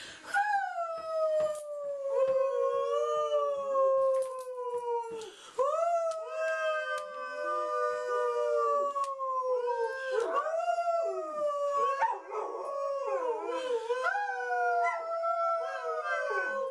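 A dog howling along with a person who is howling to it: a string of long, drawn-out howls that slide down in pitch, with the two voices overlapping at times.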